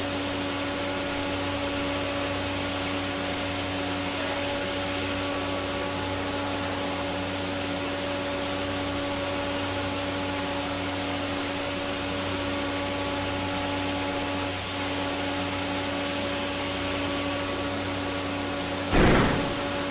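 Steady rushing hiss over a low, even motor hum: a Jet aerator running and injecting air into wastewater. A loud swell of noise breaks in about a second before the end.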